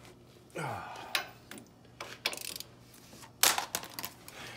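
Metal tools and parts clinking and knocking during hand work at a truck's brake caliper and wheel hub: a few sharp clicks, the loudest about three and a half seconds in. A short falling hum sounds near the start.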